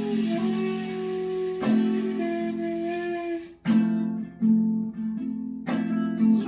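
Acoustic guitar strummed, with chords ringing out between strokes that come about every two seconds.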